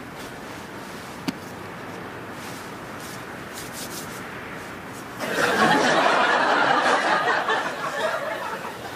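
Studio audience laughter that breaks out suddenly about five seconds in and fades away near the end. Before it there is only a faint steady hiss and a single short click.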